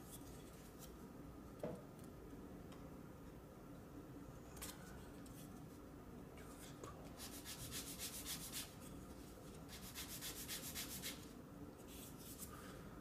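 Sandpaper rubbed by hand back and forth over the tip of a thin wooden board, in several bursts of quick strokes with pauses between, the longest in the second half. The board fits its slot too tightly and is being thinned a little at a time. One small click about one and a half seconds in.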